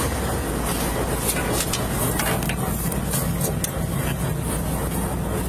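Diesel locomotive engine idling with a steady low hum, with scattered light clicks and rustles over it.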